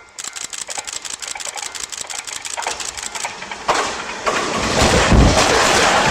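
Electric commuter train on the Kintetsu Nara Line approaching and reaching the level crossing. A rapid ticking at about ten a second grows louder, then from about four seconds in the rushing rumble of the passing train builds and is loudest near the end.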